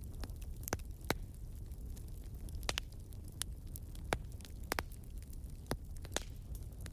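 Fire crackling: irregular sharp pops over a low steady rumble.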